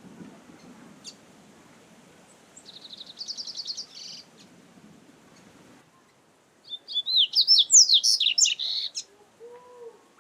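Double-collared seedeater (coleiro) singing: a rapid trilled phrase about three seconds in, then a louder, faster run of varied twittering notes from about seven to nine seconds.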